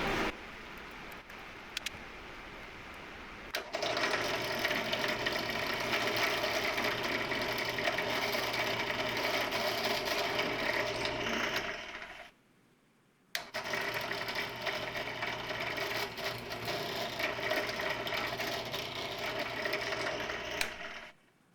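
Benchtop drill press running and drilling: a steady motor whine with a hum held at one pitch. It is quieter for the first few seconds and stops for about a second midway.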